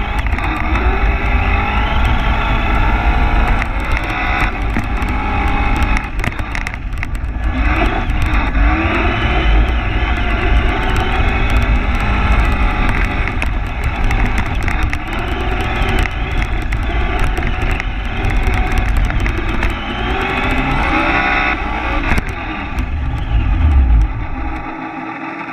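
Traxxas Slash 2WD RC truck's brushed electric motor and drivetrain whining, rising and falling in pitch with the throttle, over a heavy low rumble from tyres on snow and the side-mounted camera shaking. There is a short lull about six seconds in, and near the end the rumble drops away, leaving a quieter run.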